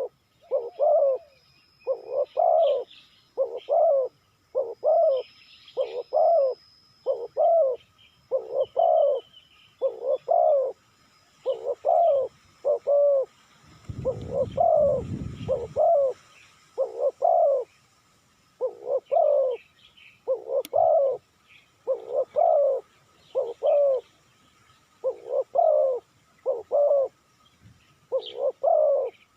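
Spotted dove cooing over and over, its short hollow notes falling into repeated phrases of two or three. Small birds chirp faintly in the background, and a low rustle comes about halfway through.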